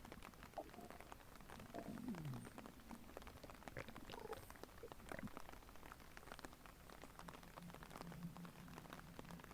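Faint human stomach gurgling: scattered small pops and clicks, a low gurgle that slides down in pitch about two seconds in, and a steady low rumble near the end.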